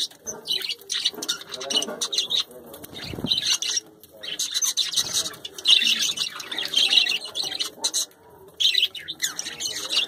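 A flock of budgerigars chattering, a dense run of quick chirps, warbles and squawks.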